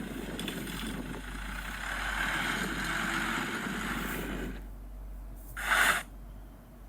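Old Komatsu bulldozer working soil, its diesel engine and tracks making a steady noisy rumble that drops away about four and a half seconds in. A short loud hiss follows about a second later.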